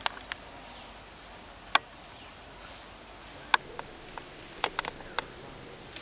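Irregular sharp snaps and cracks of dry twigs and branches breaking, about a dozen, with a cluster near the end, over a steady forest background hiss. A faint high steady whine joins a little past halfway.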